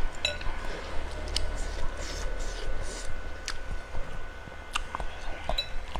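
Close-miked chewing of bakso meatballs: wet mouth smacks and short clicks at irregular intervals, over a low steady hum.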